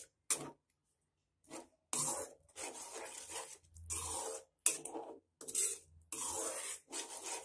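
A spatula stirring a watery pea and tomato gravy in a metal kadai, scraping against the pan in a run of short repeated strokes that begin about two seconds in.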